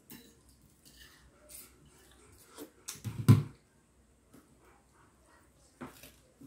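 Close-up eating sounds: short mouth smacks and chewing, with soft clicks as fingers pick dried fish off a plate, and one louder low sound about three seconds in.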